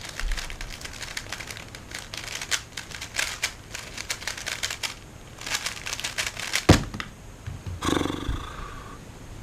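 3x3 speed cube being turned very fast, a dense run of plastic clicks and clacks. About two-thirds of the way in there is one sharp knock, typical of a solve being ended by slapping the timer.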